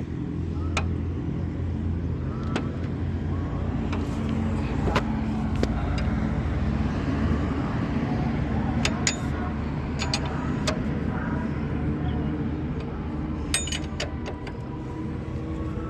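Scattered metallic clinks and ticks of a ring spanner working the motorcycle's rear axle nut loose, over a steady low hum.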